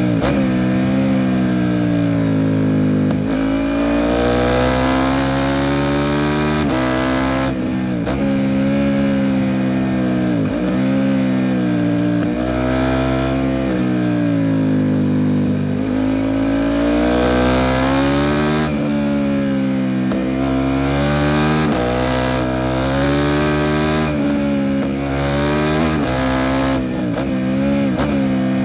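KTM 790 Duke parallel-twin engine through an Arrow Pro Race titanium exhaust, under way: it climbs in pitch under acceleration, with repeated sharp dips at gear changes and throttle lifts.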